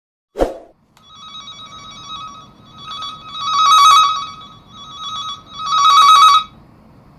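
A short thump, then an electronic telephone ringtone: a trilling tone that swells loud twice before stopping.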